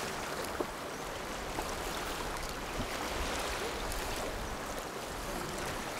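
Steady rushing of a fast-flowing river, with a couple of faint knocks.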